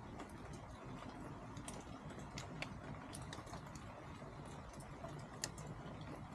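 Chickens pecking and scratching at feed: irregular light clicks and taps, a dozen or so at uneven intervals, over a steady low background rumble.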